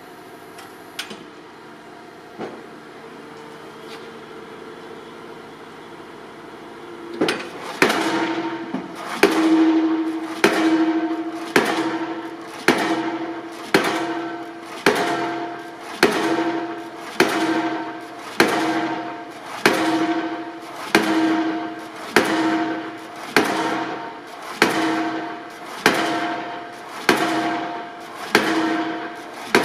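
Pile-driving rig running, then its hammer starting to drive a steel H-beam (double-T girder) into the ground about seven seconds in. The blows come evenly, a little under one a second, and each one rings out metallically as it dies away.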